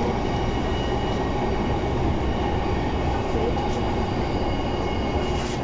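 Steady running noise inside a JR East E233-0 series electric train car in motion: a continuous low rumble of the wheels on the rails.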